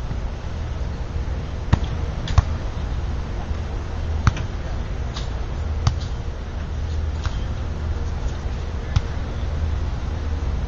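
Beach volleyball rally: the ball slapping sharply off players' hands and forearms, about six separate hits at irregular intervals over steady low background noise.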